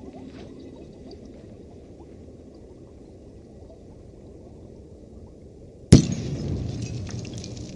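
A low steady rumble, then about six seconds in a single sharp, very loud explosion bang, followed by crackling and rattling.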